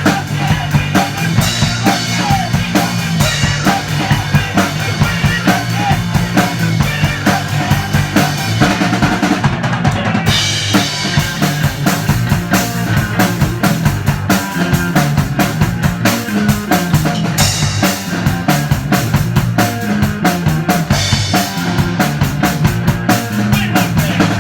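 Rock band playing an instrumental passage with no vocals: a drum kit keeps a steady, busy beat of kick, snare and rimshots under bass and guitar.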